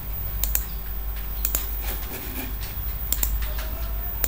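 Several sharp computer mouse clicks, some in quick pairs, over a low steady hum.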